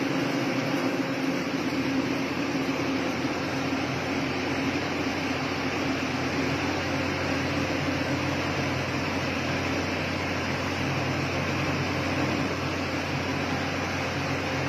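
Rice milling unit running: a steady, loud mechanical drone with a constant low hum and no change in pace.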